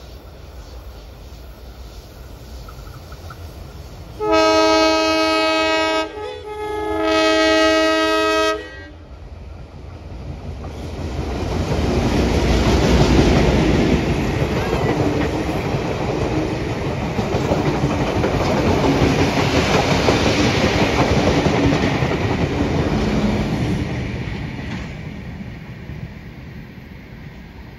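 Two blasts on the multi-tone horn of vintage 1960s streamliner diesel locomotives 42107 and 42103, each about two seconds long. The locomotives' engines then pass loudly, and a rake of heritage passenger carriages follows, clattering over the rail joints as the train fades away.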